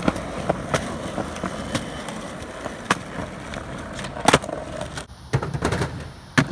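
Skateboard wheels rolling over rough concrete and asphalt, broken by several sharp clacks of the board popping off the ground and slapping down on landings. The rolling noise drops away suddenly about five seconds in.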